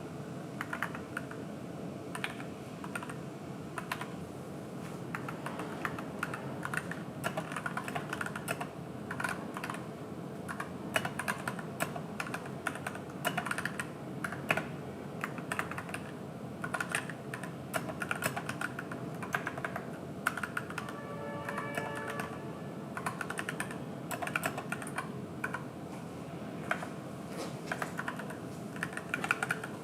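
Fast, continuous typing on an AKKO 3061S 61-key mechanical keyboard with pre-lubricated Gateron switches: a dense, irregular clatter of key clicks.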